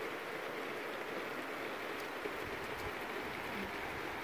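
Steady rain falling, an even hiss with a few faint drip ticks.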